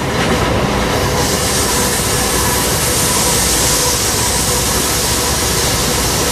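Steady running noise inside a moving freight locomotive's cab: engine drone and wheel-on-rail rumble under a constant hiss, which grows brighter about a second in.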